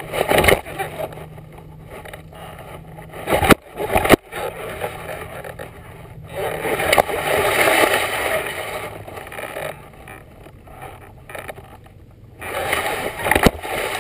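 A board sliding over grass: rushing, scraping noise of the grass against the board that swells and fades, with sharp knocks about three and a half and four seconds in and again near the end.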